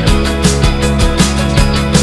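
Rock music with a steady, fast beat, about four hits a second, over sustained instrument tones.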